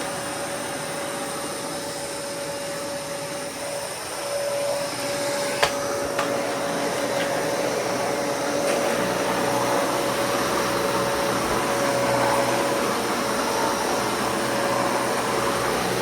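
Dyson Cinetic Big Ball upright vacuum cleaner running steadily, a whooshing hum with a held whine. There is one sharp click about five and a half seconds in, and the motor sound grows a little louder and fuller from about nine seconds in.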